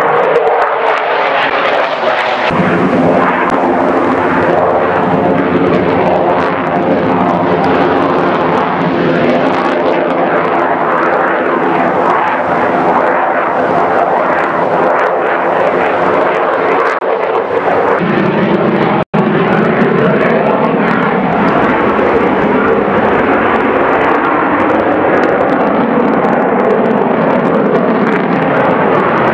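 Saab JAS 39 Gripen single-engine jet fighter flying aerobatics overhead: a loud, continuous jet roar that fills out in the low end a couple of seconds in. The sound cuts out for an instant about two-thirds of the way through.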